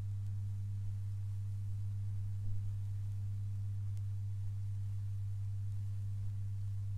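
Steady low hum: one deep, unchanging tone with faint overtones, in the gap between songs on a thrash metal album recording.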